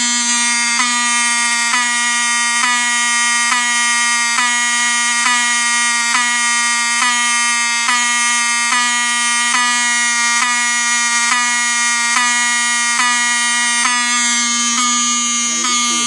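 Wheelock 7001T-24 fire-alarm horn-strobe (its Wheelock 34T horn, run on 24 V DC) sounding a loud, steady buzzing tone, set off by a pulled pull station. The tone skips briefly a little more than once a second.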